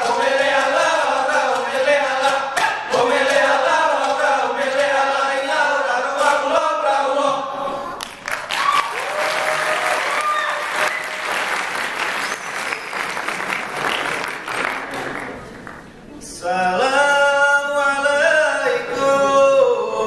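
Voices chanting a Likok Pulo dance song together for about eight seconds, then breaking into a stretch of applause for about eight seconds, after which the chanting starts again.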